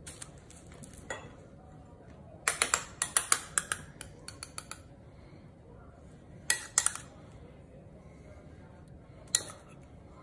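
Metal spoon clinking against a small glass bowl as sauce is scooped out: a quick run of sharp clinks a couple of seconds in, two more around the middle, and a single clink near the end.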